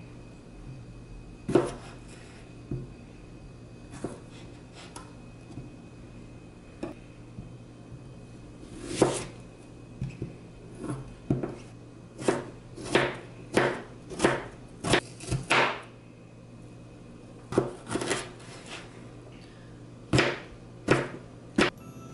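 Chef's knife slicing through onion and jalapeño peppers and knocking on a wooden cutting board: scattered single cuts at first, then a quicker run of cuts about two a second midway, and a few more near the end.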